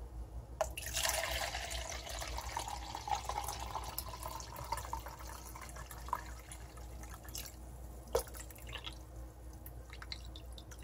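Water poured from a bottle into a plastic measuring jug. The stream starts about a second in, runs for about five seconds with its pitch rising a little as the jug fills, then trails off. There is a single sharp click a couple of seconds later.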